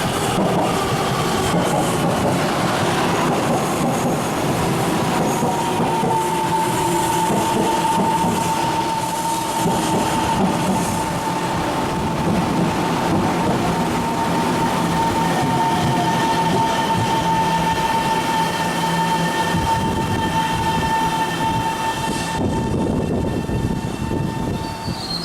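Taiwan Railways passenger train running past at steady loudness. About six seconds in a steady high-pitched squeal starts and holds almost to the end.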